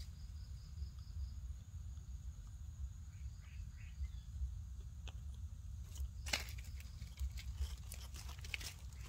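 Leaves rustling and crackling as a baby monkey shifts about on them, with sharp crackles about six seconds in and again near the end. Insects buzz steadily throughout, with a short run of even pulses in the first second.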